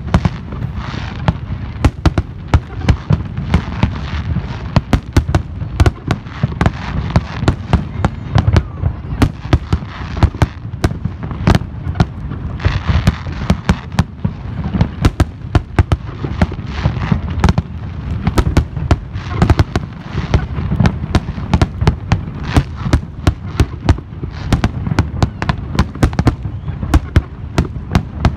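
Fireworks display: a continuous barrage of aerial shells bursting, many sharp bangs a second over a steady low rumble and crackle.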